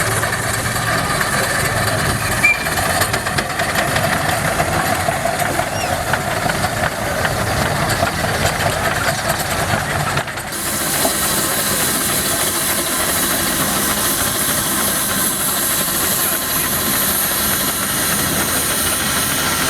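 Steam traction engines running with a steady hiss of steam. About halfway through the sound changes abruptly to a brighter, louder hiss.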